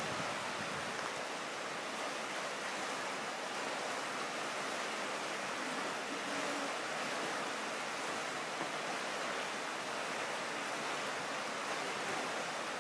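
Steady, even rush of flowing water, with no distinct splashes.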